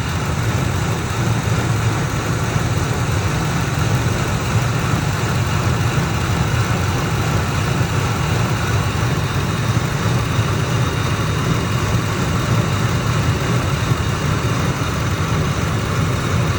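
2003 Ford Expedition's V8 engine idling steadily as it warms up, with no belt or pulley chirp heard yet.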